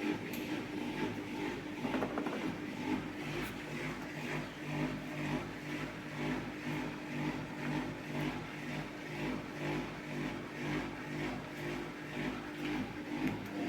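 AEG Öko-Lavamat 4100 washing machine on its spin cycle, its drum spinning with a steady rumble that swells and fades about twice a second. The rumble comes from bad drum bearings.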